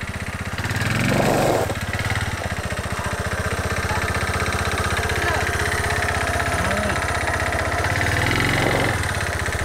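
Bashan 250 Chinese ATV engine running as the quad is ridden slowly over gravel, the engine note swelling twice, about a second in and again near the end.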